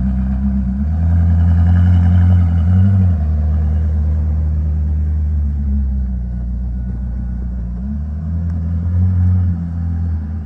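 Koenigsegg Jesko's twin-turbo V8 running at low revs with a deep, steady rumble. It swells louder from about a second in until about three seconds in, and again about eight to nine and a half seconds in.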